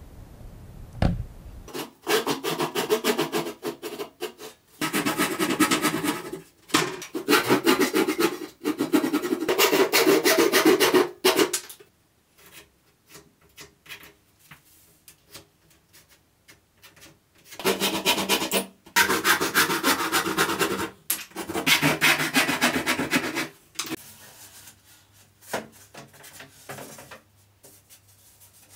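Wood being sanded by hand, quick back-and-forth rubbing strokes in spells of a few seconds: a long run of strokes in the first half, a quieter stretch with a few light taps, then more spells of rubbing.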